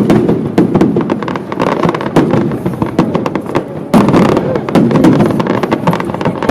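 Fireworks display going off: a dense run of bangs and crackles, with loud bursts at the start and again about four seconds in.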